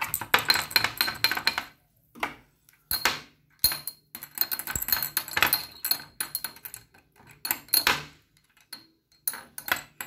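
Small parts of a washing-machine inlet solenoid valve rattling and clinking against a glass jar of muriatic acid as the jar is swirled and handled, in quick runs of clicks with a few short pauses.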